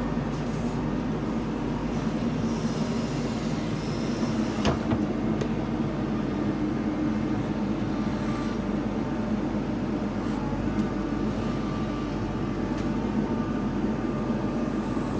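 JCB 3DX backhoe loader's diesel engine running steadily while it works, with one sharp metallic knock about five seconds in.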